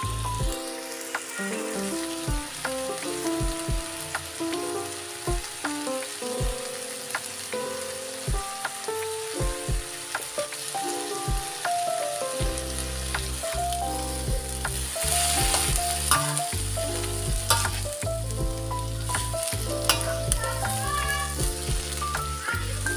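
Water spinach sizzling as it stir-fries in a wok, with a metal spatula scraping and clicking against the pan. Background music with a melody and bass plays over it.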